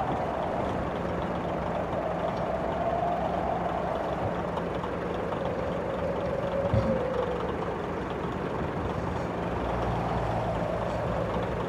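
Truck engine running steadily under way, with a whining tone that slowly falls in pitch and then rises again near the end.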